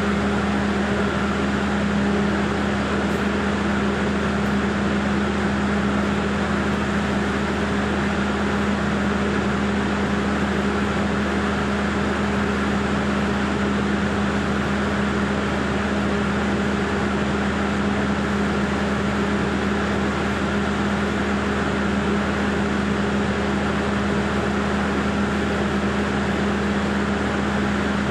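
An engine running steadily with a constant, even hum and no change in speed.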